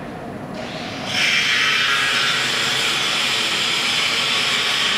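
A steady, loud hiss of rushing air that switches on about a second in and runs on evenly, from the laser cutter's air system starting up.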